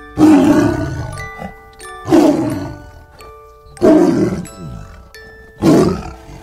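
Tiger roaring four times, each roar about a second long and fading, roughly two seconds apart, over background music with chiming notes.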